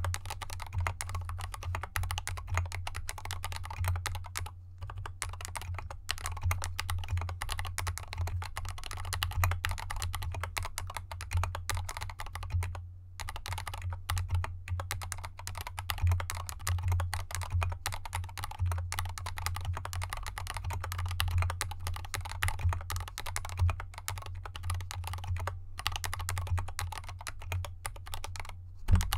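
Continuous fast typing on a GK64X mechanical keyboard fitted with Krytox-lubed Gateron Yellow linear switches and SA-profile keycaps, in an anodized aluminium case with dampening foam, the keyboard resting on felt fabric. The typing pauses briefly about 5, 13 and 26 seconds in.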